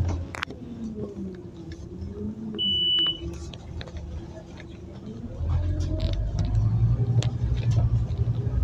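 Scania Omnicity city bus running, heard from inside the bus as it drives: engine and drivetrain tones waver up and down, with a short high electronic beep about three seconds in. From about five seconds in, a louder low engine rumble comes in as the bus pulls harder.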